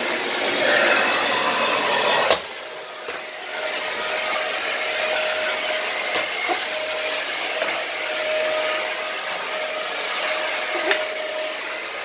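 Two vacuum cleaners running, a toy Bosch canister vacuum and a household vacuum, giving a steady high whine over a rushing hiss. A little over two seconds in there is a click and the hiss drops sharply, while the whine carries on.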